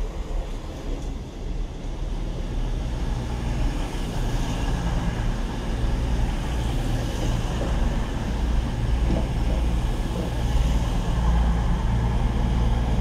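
Diesel freight locomotive running with a steady low engine rumble, a little louder from about three seconds in.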